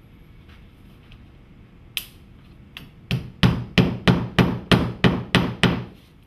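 Hammer nailing a faux stone cladding panel to the wall: one strike about two seconds in, a light tap, then a quick run of about nine blows at roughly three a second that stops near the end.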